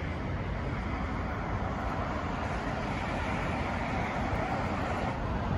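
Steady noise of road traffic passing close by, with wind rumbling on the microphone.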